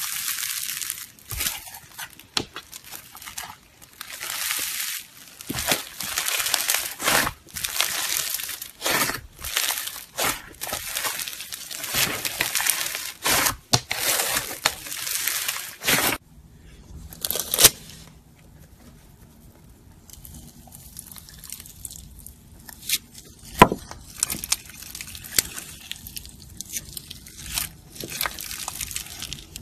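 Fluffy white slime squeezed and pulled apart by hand, giving loud, dense crackling and tearing in repeated bursts. About halfway through, this stops abruptly and gives way to much quieter slime play with only scattered sharp clicks and pops.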